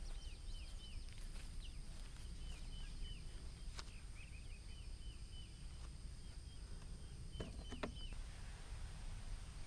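A small bird singing faintly, a string of short, high, falling chirps repeated in quick runs, over a low steady rumble of outdoor noise. A couple of brief sharp clicks come a little under four seconds in and again around seven and a half seconds in.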